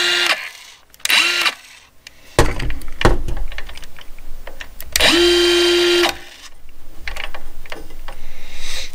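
Milwaukee M12 Fuel 5-3/8-inch cordless circular saw's brushless motor run with no load in short trigger pulls. A brief blip comes about a second in. About five seconds in it spins up quickly to a steady high whine, holds it for about a second, then winds down. Clicks and knocks from handling the saw come in between.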